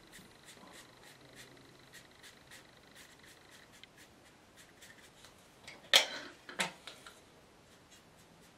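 Paintbrush dabbing and scrubbing watercolour paint onto paper, with faint light ticks throughout and two louder brushy scrapes about six seconds in.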